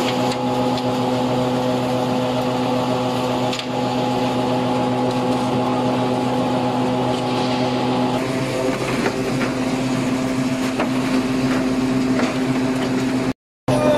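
6YL screw oil press running steadily under load: its motor and gear drive give a constant hum made of several steady tones. The sound shifts slightly about two thirds of the way through and drops out briefly near the end.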